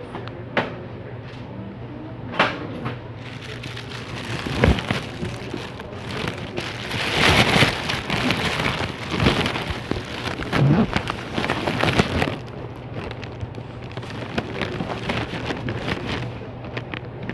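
Handling noise from a phone rubbing against clothing: a few sharp knocks in the first five seconds, then a dense crackling rustle for about six seconds that fades to lighter rustling.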